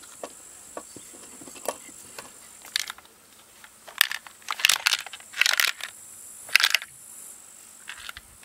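Plastic housing of a partly disassembled Chinese Stihl-copy chainsaw knocking and clicking as the powerhead is lifted and tilted by hand, with a few short clattering bursts about four to seven seconds in as it is turned over to shake loose a part dropped inside.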